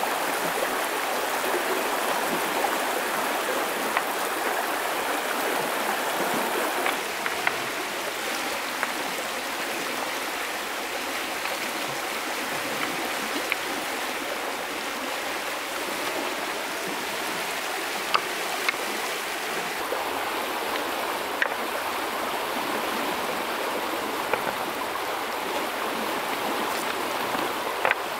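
Stream water rushing steadily over a stony bed, with a few sharp clicks of river stones knocked against each other as they are handled.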